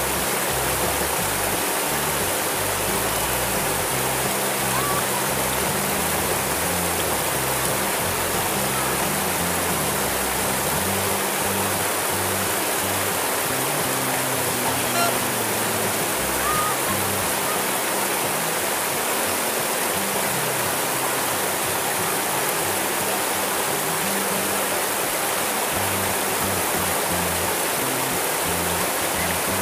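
River water rushing steadily over a low weir of stones and around boulders in the shallows.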